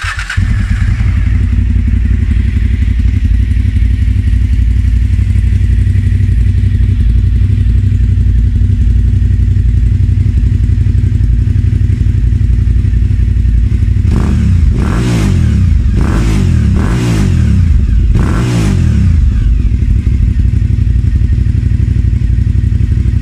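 Suzuki TL1000R's 90-degree V-twin catches just after the start and idles loudly and steadily through its exhaust. A little past halfway it gets several short, sharp blips of the throttle, each rising and falling quickly, before it settles back to idle.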